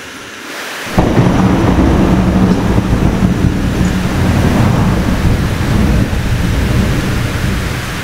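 Heavy rain, then about a second in a sudden loud crack of thunder that rolls on as a long, deep rumble over the downpour.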